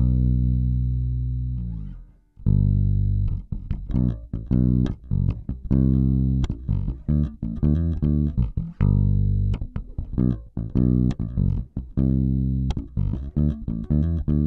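Warwick Corvette $$ electric bass played fingerstyle with its pickups switched to single-coil mode: a held low note rings and fades out over the first two seconds, then after a brief gap a busy riff of plucked notes with sharp attacks.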